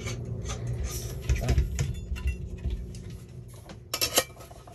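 Metal parts of a Camp Chef Stryker backpacking stove being handled and fitted together on a propane canister: scattered light clicks and knocks, with two sharper clicks about four seconds in.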